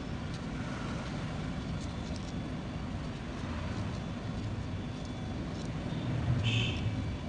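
Steady low background rumble, with a brief higher-pitched sound about six seconds in.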